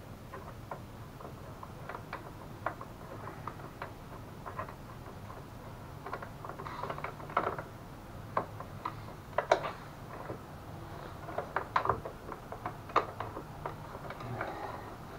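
Irregular light clicks and small metallic knocks of hand tools working a mounting bolt into a mobility scooter's front bumper, coming thicker and louder about halfway through, over a low steady hum.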